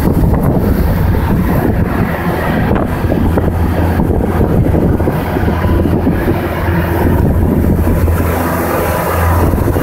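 Car ferry's engine running with a steady low drone while under way, with wind blowing across the microphone.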